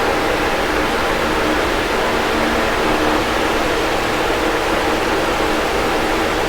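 Box fan running steadily: an even rush of air with a faint low hum from the motor.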